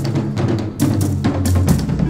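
Music with a steady drum-kit beat over a bass line.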